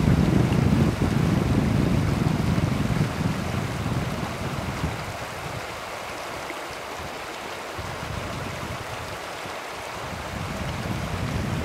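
River water rushing steadily, a hiss with no distinct events, with wind buffeting the microphone as a low rumble that eases off midway and picks up again near the end.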